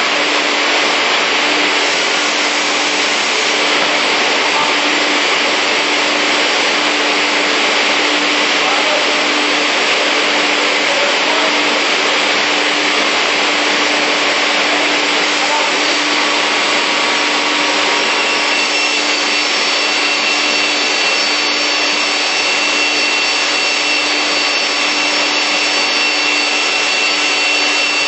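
Arco ZPF beam saw running between cuts: a steady rushing machine noise with a constant low hum, joined by a thin steady whine about two-thirds of the way through.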